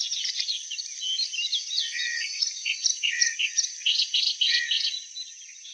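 Clamorous reed warbler singing: a loud, quick run of harsh chattering notes and whistles, over a steady high hiss, fading near the end.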